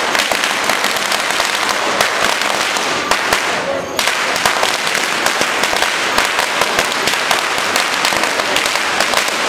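A string of Chinese firecrackers going off in a dense, continuous crackle of rapid pops, thinning briefly about three and a half seconds in.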